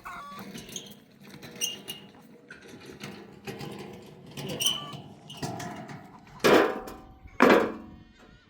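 Two loud bleats from sheep or goats, about a second apart near the end, after quieter scattered calls and clicks.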